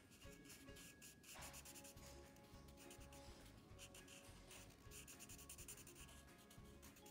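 Sharpie fine-point marker rubbing on paper in quick, short strokes as it fills in a small spot. Faint background music runs underneath.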